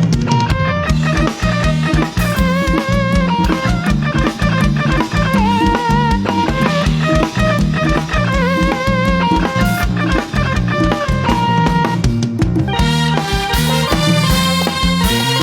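Thai brass band (trae wong) playing fast, upbeat dance music. Horn and saxophone melody lines with vibrato ride over a steady, driving drum-kit beat.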